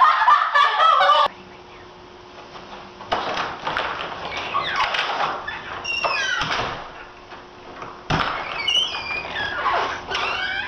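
Girls' high-pitched wordless squeals and cries, sliding up and down in pitch, in three spells with short pauses between.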